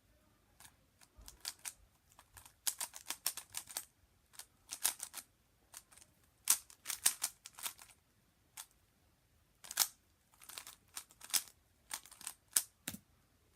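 Zcube M plastic speedcube being turned by hand: irregular runs of quick clicks as the layers are snapped round, with short pauses between the runs.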